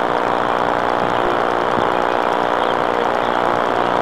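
Engine idling steadily, a constant drone that holds one speed throughout.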